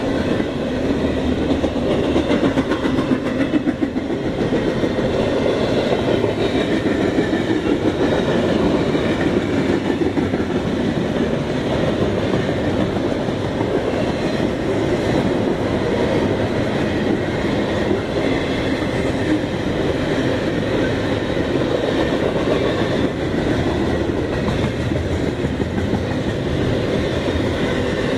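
CSX double-stack container freight train rolling past with a steady rumble and the clatter of its wheels on the rails.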